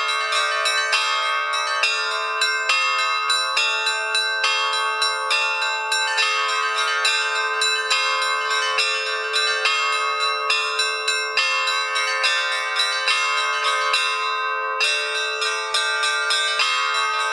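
Bells ringing in a long, even run of strikes, about three a second, each tone ringing on under the next.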